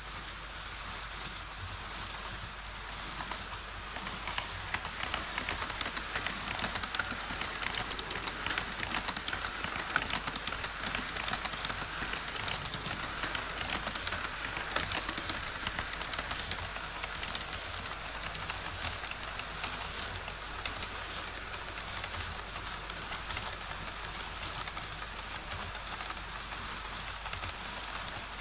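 HO scale model trains running over KATO Unitrack track and a model truss bridge: a steady fine clicking rattle of the wheels on the rails, growing louder about four seconds in as the trains pass.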